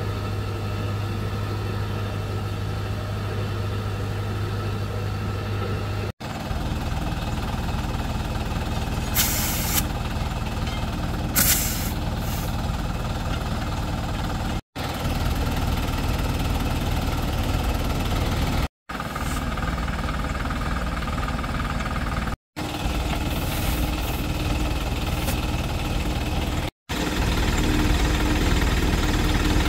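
An engine running steadily, with two short hisses of air about nine and eleven seconds in. The sound drops out briefly five times.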